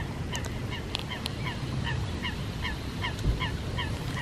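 A water bird calling over and over: a steady run of short, slightly falling call notes, about three a second.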